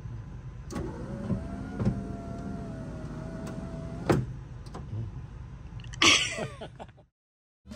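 Window winder crank on a 1959 Mack B-753 truck door being turned by hand: the glass moves in its channel with a steady thin squeak and a few sharp clicks, then a louder scraping clunk about six seconds in. The sound cuts off shortly before the end.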